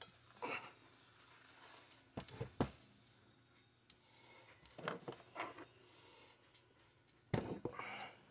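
Light knocks and clatter of a stripped two-stroke chainsaw engine (cylinder and crankcase) being handled and turned over on a workbench. There are a few scattered knocks, the sharpest about two and a half seconds in and again about seven seconds in.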